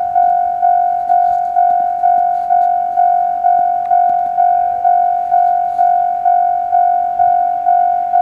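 Japanese railway level crossing's electronic warning bell ringing steadily, a single high ding repeating about twice a second.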